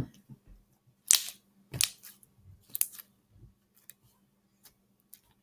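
Sharp clicks: three loud ones, about a second in, near two seconds and near three seconds, then a few faint ticks.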